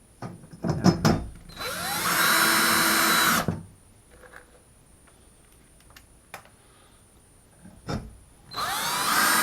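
Power drill on a low clutch torque setting driving screws through a metal shelf track into wall anchors: two runs of about two seconds each, the motor whining up to speed and then running steady. A few sharp knocks and clicks of handling come at the start and again before the second run.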